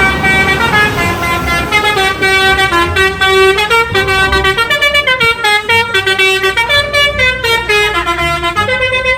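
A bus's 'telolet' musical horn plays a quick tune, its notes stepping up and down in pitch, over a low rumble.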